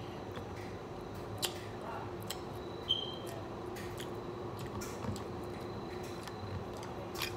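A few sharp clicks and taps from a crab leg and its shell being handled in a glass sauce bowl while eating, the loudest about three seconds in with a brief ring. A steady low hum runs underneath.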